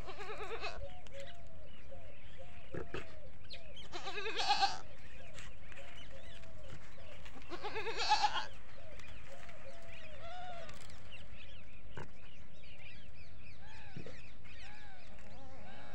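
Desi goats bleating: three loud, wavering bleats about four seconds apart (at the start, about four seconds in and about eight seconds in), with fainter, shorter calls in between and after.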